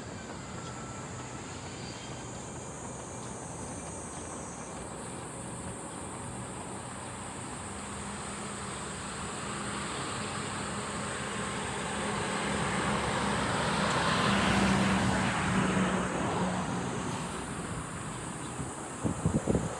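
A vehicle approaches, passes with a low hum at its loudest about two-thirds of the way through, and fades, over a steady high insect drone. A few sharp clicks come near the end.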